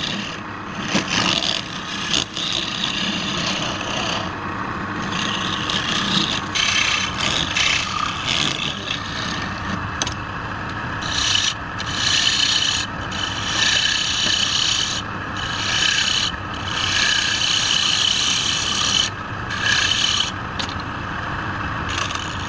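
Woodturning: a hand tool scraping against wood turning on a lathe, the rasping hiss stopping and starting every second or two as the tool is lifted and set back on the work, over the steady hum of the running lathe.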